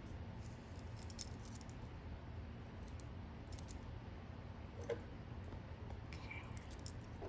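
A few faint, scattered clicks of metal jewelry pliers on a small metal jump ring while beetle wings are being linked on, the sharpest about five seconds in, over a low steady hum.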